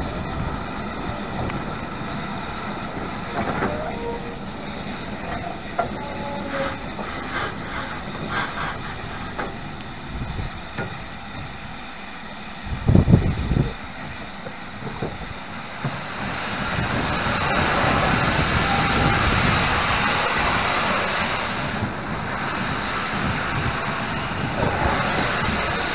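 GWR King class four-cylinder 4-6-0 steam locomotive 6023 'King Edward II' moving slowly, with clicking and clatter from the wheels on the track. There is a single loud low thud about halfway through. Later, steam hisses loudly for several seconds, eases off briefly, then starts again near the end.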